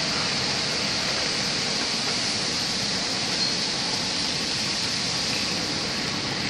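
Steady rushing hiss of heavy rain on a car, heard from inside the cabin.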